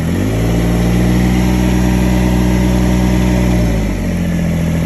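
Kubota BX1850 compact tractor's three-cylinder diesel engine brought up from idle on the hand throttle. It holds a steady higher speed for about three and a half seconds, then drops back to idle near the end.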